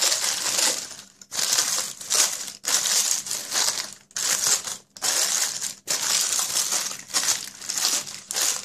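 Crumpled parchment paper crinkling as hands press and smooth it into a round cake tin, in a run of rustling bursts with short pauses between them.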